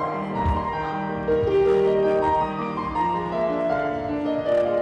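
Piano music, held notes moving over a steady lower line.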